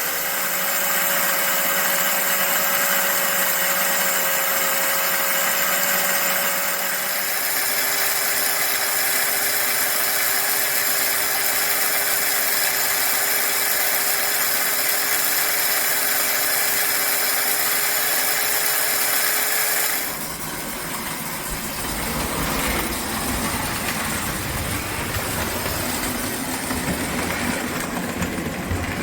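American Flyer 322 toy steam locomotive running on the track, its electric motor giving a steady whine that drops slightly in pitch about seven seconds in. About twenty seconds in, the sound changes abruptly to a quieter, lower, rougher rumble.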